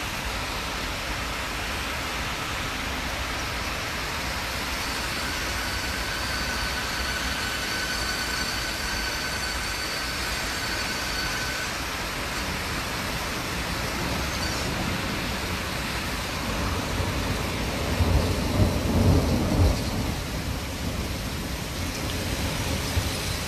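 Heavy rain pouring steadily in a windy thunderstorm, with a loud low rumble about three-quarters of the way through.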